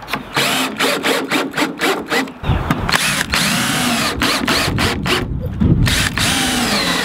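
Cordless drill/driver driving screws into a wooden trim board. It starts with a quick run of short stop-start bursts, then longer runs whose motor whine rises and falls as each screw goes in.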